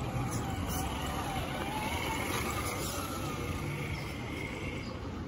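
Traxxas TRX-4 RC crawler's brushed electric motor and geartrain whining as it drives past, the pitch rising and falling with the throttle, over a steady low rumble.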